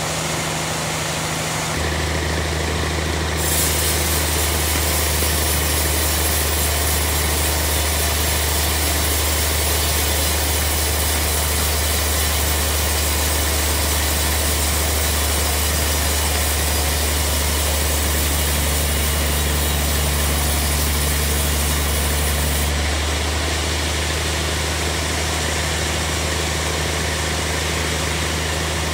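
Band sawmill sawing a large log: the machine's drive runs with a steady low drone, and from about three seconds in the blade cutting through the wood adds a loud high hiss, which drops away near the end while the drone goes on.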